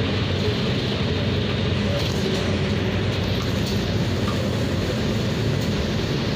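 Steady drone of a city bus's engine and road noise, heard from inside the cabin while the bus drives.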